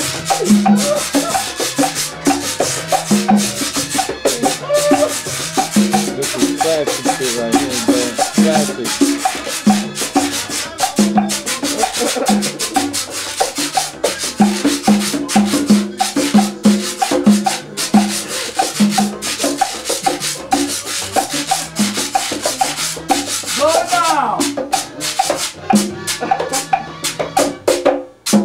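Hand-played conga drums keeping a steady Latin rhythm, with maracas shaking along and a scraped percussion sound layered on top.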